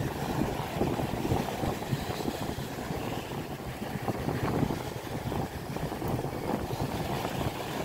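Wind buffeting the microphone, a steady low rumble over the wash of small waves breaking on a sandy shore.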